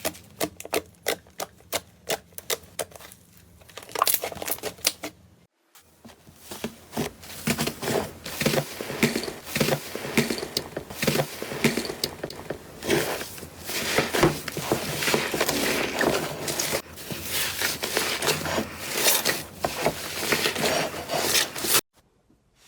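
Slime being squeezed and poked by hand, giving a dense, irregular run of sticky clicks and crackling pops. There is a brief break about five and a half seconds in, and the sound cuts off suddenly near the end.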